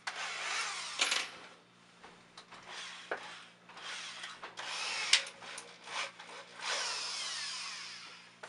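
Power drill with a quarter-inch bit boring anchor holes through drywall, run in three short bursts with the motor speed rising and falling.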